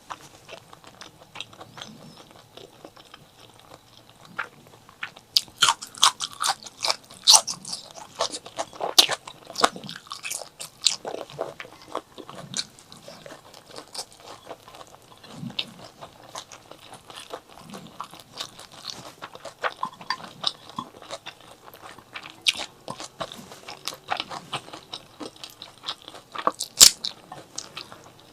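Close-miked eating sounds of chili and white rice: crunchy bites and chewing with wet crackles. The crunching is densest about five to eleven seconds in and then thins out, with one sharp loud crunch near the end.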